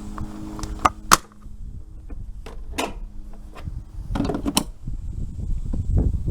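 Plastic fuse-box cover being closed and snapped back into place: a handful of sharp clicks and knocks, the loudest a little past a second in. A low steady hum stops about halfway through.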